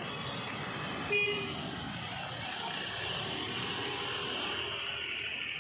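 Outdoor road and traffic background with one short vehicle horn toot about a second in.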